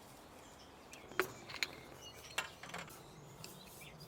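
A few light, sharp clicks and taps, four or five scattered over a couple of seconds, over a faint steady outdoor hush.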